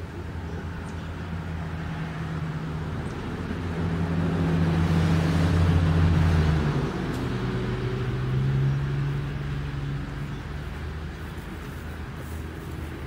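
A motor vehicle passing on a road. Its engine note and tyre noise grow louder to a peak about six seconds in, and the engine tone changes pitch just after the peak before the sound fades.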